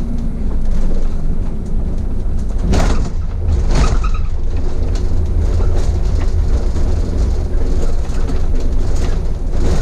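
City bus driving, heard inside the driver's cab: a steady low engine and tyre rumble with a couple of sharp knocks about three and four seconds in. In the second half the tyres rattle over a road of concrete slabs where the asphalt ends.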